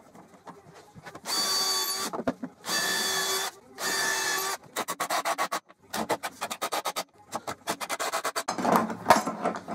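Cordless drill boring pilot holes into the wooden jig in three short bursts of about a second each, then a cordless impact driver hammering screws in, with a rapid rattling clatter in several runs.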